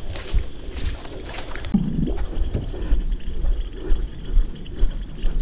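A small boat being carried by hand: knocks and rustling from the handling, with wind buffeting the microphone and a brief voice about two seconds in.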